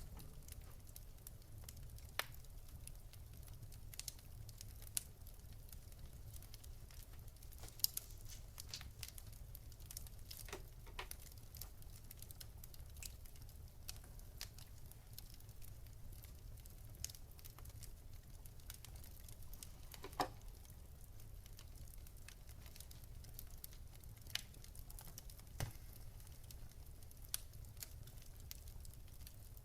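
Wood fire crackling: a low steady rumble with scattered sharp pops and snaps at irregular intervals, the strongest about 8 and 20 seconds in.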